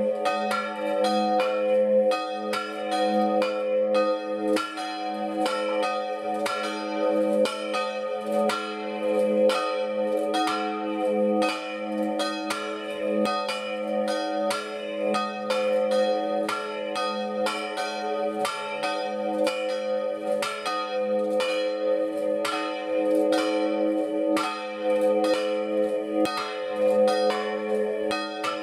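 Two smaller church bells cast by the Marinelli foundry of Agnone, swung full-circle in a distesa, their clappers striking in a continuous, overlapping peal. The second bell has a large crack that spoils its tone.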